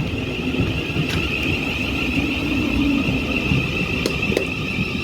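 Electric passenger train running through the station: a steady rumble with a constant high whine over it, and a few sharp clicks.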